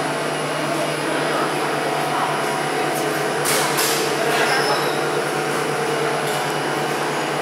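Gondola lift station machinery running: the drive bullwheel and haul rope turning with a steady low hum and mechanical drone. A brief hiss comes about three and a half seconds in.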